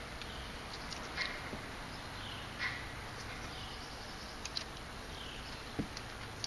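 Steady outdoor background hiss with a few light taps and rustles from a fabric magnetic window shade being handled and pressed against a motorhome's window frame, plus a few faint, brief chirps.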